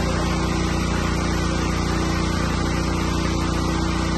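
Kishan King power sprayer running steadily with a small-engine drone, its motor holding one even speed while it sends a fine mist spray up into a tree.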